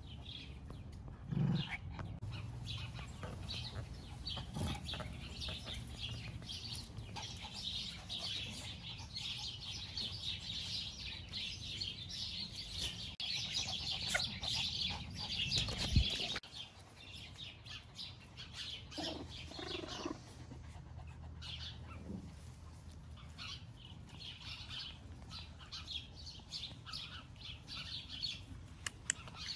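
Many small birds chirping and twittering, dense at first and thinning out after about halfway, where a single sharp thump is the loudest sound; a low rumble runs underneath.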